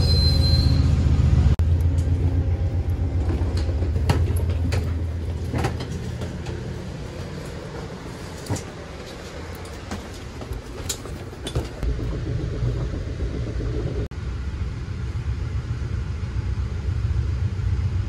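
Low, steady rumble of a moving vehicle with scattered clicks and knocks; it fades somewhat midway and grows louder again after about twelve seconds.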